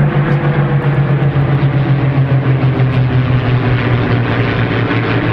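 Piston engines of a World War II propeller aircraft running loud and steady at a constant low pitch.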